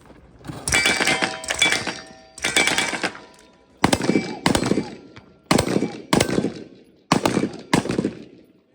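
Machine gun firing: a rapid burst of shots in the first couple of seconds, then shorter bursts or shots in pairs about two-thirds of a second apart. Each shot is a sharp crack with a long echoing tail.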